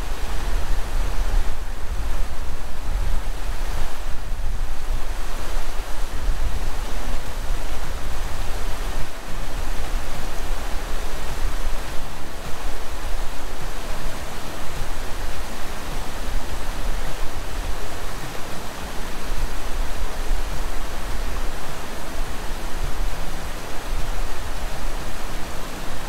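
Loud, steady rushing of water, an unbroken noise heavy in the low end, as from a waterfall or fast creek close by.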